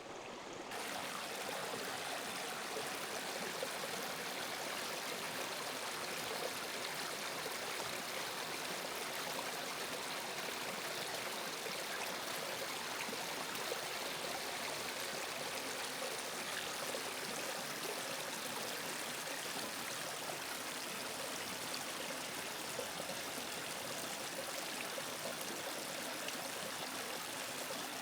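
Small mountain creek running over rocks and ice: a steady, even rush of flowing water.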